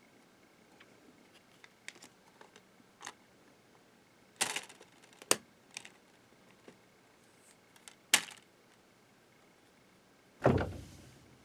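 Plastic clicks and clacks from a multi-disc DVD case being handled as its hinged disc trays are turned, with discs shifting in the trays. Near the end comes a louder, duller thud as a tray flops over.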